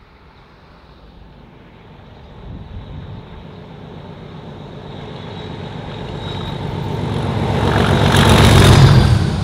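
A locomotive running light, its low engine rumble growing steadily louder as it approaches. It reaches its loudest as it passes close by near the end.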